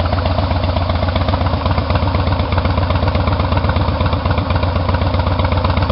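Exhaust of a 2007 Harley-Davidson Softail FX's Twin Cam 96 V-twin, idling steadily with a fast, even pulsing beat.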